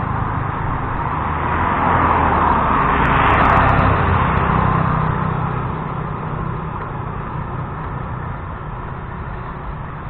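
A motorbike passes close by on the road, its engine and tyre noise growing louder to a peak about three seconds in, then fading as it rides off.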